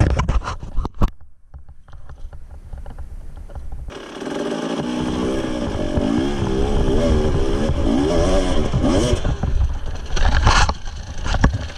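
Husqvarna TE300 two-stroke enduro engine, with clattering knocks in the first second and a quieter spell until about four seconds in. From there it revs up and down while the bike picks its way over rocks, with a short loud burst of clatter about ten and a half seconds in.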